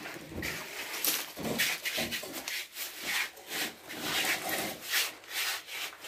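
Repeated rasping scraping strokes of a hand tool, a few a second and slightly irregular.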